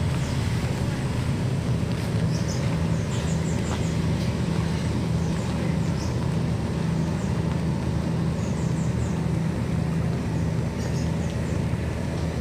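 Large diesel generator set, judged to be about 100 kVA, running steadily with a constant low hum.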